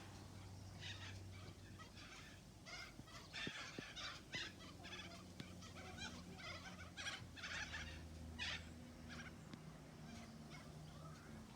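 Pet bird going after grass seed: an irregular run of short, scratchy sounds, many in quick succession in the middle stretch, over a low steady hum.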